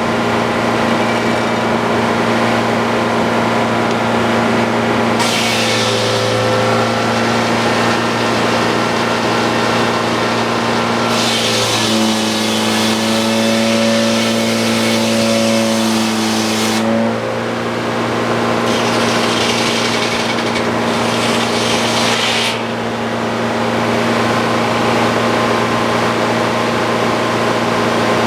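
Frick OO circular sawmill running on its power engine with a steady hum. The saw blade cuts through an ash log in three stretches: briefly about five seconds in, for about five seconds near the middle, and again for a few seconds soon after.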